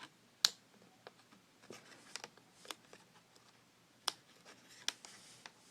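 Scattered small clicks and taps, about seven, from hands working a laptop's plastic case and ribbon-cable connectors.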